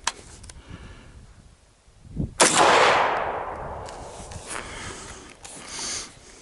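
A single AR-15 rifle shot about two and a half seconds in, sharp and loud, its report dying away slowly in a long tail.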